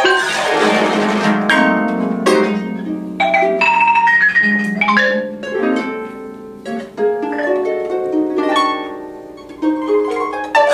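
Two pedal harps plucked in free improvisation: chords and single notes that ring and decay. A loud chord comes at the start, the playing thins out and quietens near the end, then another loud chord is struck.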